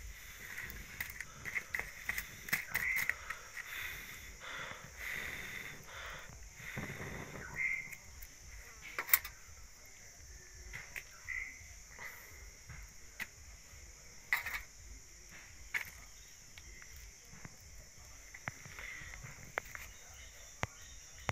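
A small open wood fire crackling, with scattered sharp pops and clicks, over a steady high insect drone and short repeated chirps.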